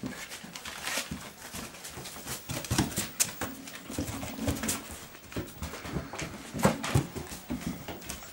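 Belgian Shepherd Groenendael puppies playing rough: short dog vocal sounds, one held for about a second a little before the middle, over scuffling and many sharp little clicks and knocks.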